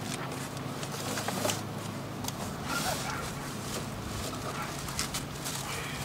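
Camping gear being handled in the back of a small car: scattered light knocks and rustling over a steady low hum.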